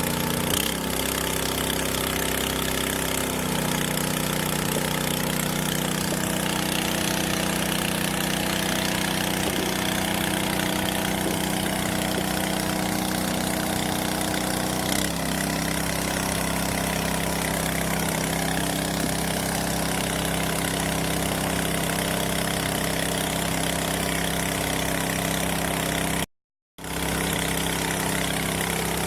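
Engine of a 2-inch portable water pump running steadily, its pitch shifting a few times as the load changes, with a hiss of spraying water over it. The sound cuts out briefly near the end.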